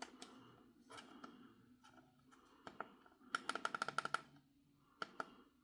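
Faint taps and short beeps from a GOLSPARK digital calendar clock's touch controls while its time is being set: a few single taps, then a quick run of about ten beeps in a second around the middle, and two more taps near the end.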